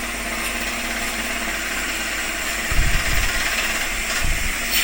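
Steady background hiss, with a few low thumps about three seconds in and another about a second later.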